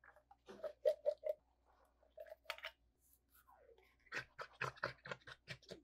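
Canned beans being emptied from the can into a slow cooker crock: short wet plops and squelches in small clusters, then a dense run of them over the last couple of seconds as a second can is poured.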